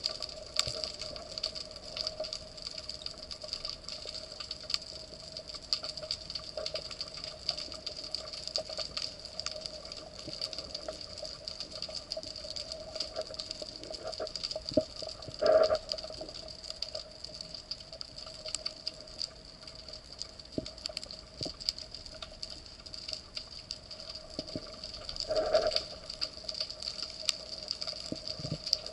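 Underwater ambience: a dense crackle of tiny clicks over a steady hum, with two louder short sounds, one about halfway through and one near the end.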